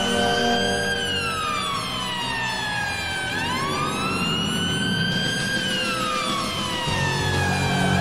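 Hockey arena goal siren wailing in slow sweeps, pitch rising and falling about once every five seconds, over music with steady low tones.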